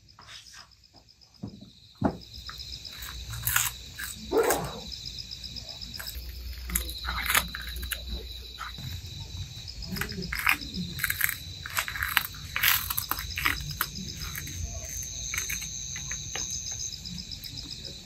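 A cat chewing capelin fish, with irregular short crunching clicks, over steady pulsing chirps of crickets.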